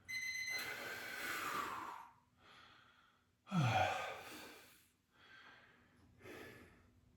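A man breathing hard from exercise: long, breathy exhales, the loudest a voiced sigh falling in pitch about three and a half seconds in, then quieter breaths.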